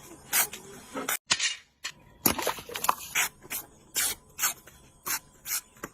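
Hand knife scraping and cutting through metal in repeated short, rasping strokes, about two to three a second, with a brief break a little over a second in.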